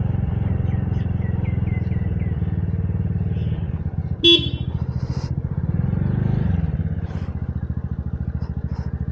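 Motorcycle engine running while under way, easing off a little and picking up again in the middle. There is one short, loud pitched beep about four seconds in.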